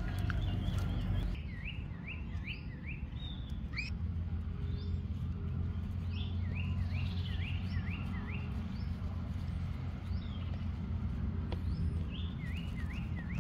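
A songbird singing short runs of quick, swooping whistled notes, four or five to a run, repeated several times, over a low steady hum.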